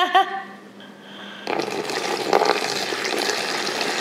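A brief voice at the very start, then water pouring from a plastic cup into a tarpaulin storage box: a steady splashing stream that begins about one and a half seconds in.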